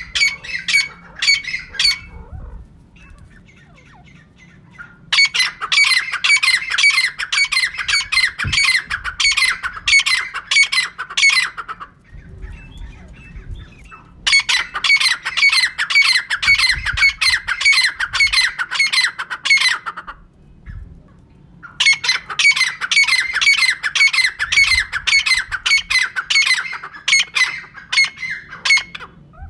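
Female teetar (francolin) calling: long runs of rapid, repeated harsh notes, about three a second, in four bouts separated by short pauses.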